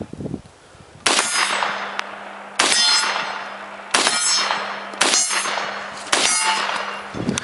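Five rifle shots from an M1 Carbine at an unhurried, fairly even pace, about a second to a second and a half apart, each followed by a metallic ringing that fades slowly.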